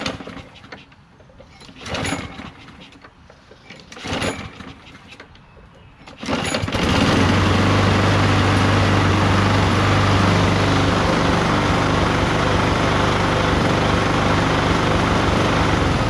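Walk-behind gas lawn mower engine being pull-started: three short cord pulls about two seconds apart, then on the fourth pull, about six seconds in, the engine catches and runs steadily and loudly, vibrating.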